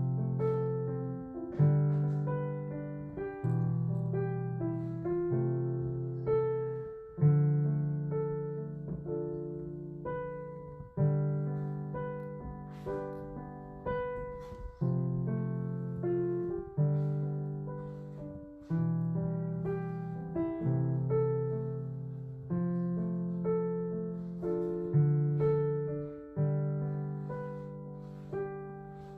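Background piano music: a slow run of chords, each struck and left to ring and fade before the next, about one every one to two seconds.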